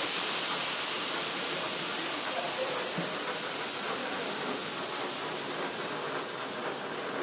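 High-pressure water jets of an automatic touchless motorcycle wash spraying with a steady hiss that slowly fades.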